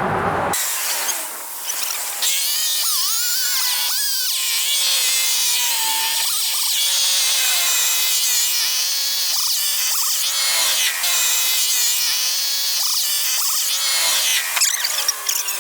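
Cordless drill-driver whining as it backs screws out of wood. It runs in short stretches with brief pauses, and its pitch wavers and shifts with the trigger.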